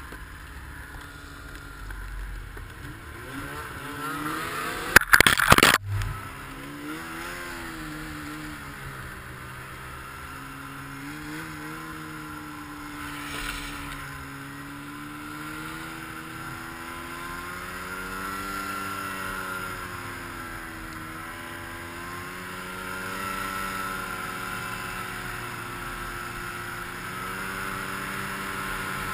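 Arctic Cat M6000 snowmobile's 600 cc two-stroke twin engine running under load in deep powder, its pitch rising and falling again and again as the throttle is worked. About five seconds in, a loud, brief crash of noise stands out above the engine.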